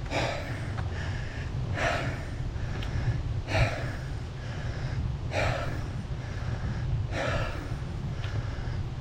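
A cyclist breathing hard and laboured from the effort of a steep uphill climb, with a loud gasping breath about every second and three-quarters and softer ones in between. A steady low rumble runs underneath.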